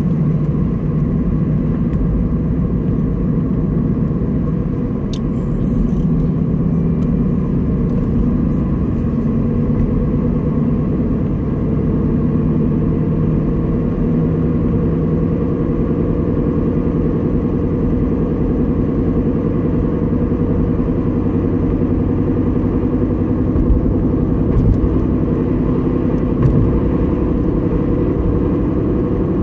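A 2011 Honda Civic running with a steady low hum over the car's rumble: the unexplained humming noise its owner wants diagnosed. A brief click about five seconds in and a few small bumps near the end.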